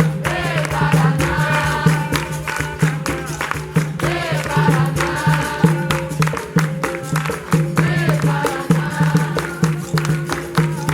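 Capoeira music: group singing over berimbau and pandeiro, with frequent sharp percussive strikes keeping the rhythm.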